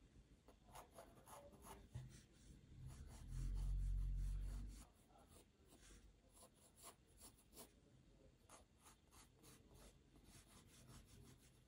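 Pencil sketching on paper: many short, quick scratchy strokes, with a louder low rumble for about a second and a half near the middle.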